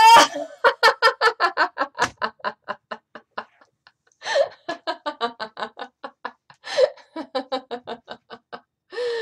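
A woman's rising 'aloha' breaks into deliberate laughter-yoga laughter: three rounds of rapid 'ha-ha-ha', about six a second, each tailing off, with a sharp breath before each new round.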